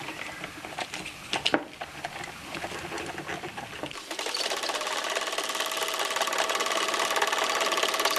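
A few clicks and knocks as a film reel is handled at a home-movie projector. About four seconds in, the projector starts and runs with a steady, rapid mechanical clatter and a steady motor hum.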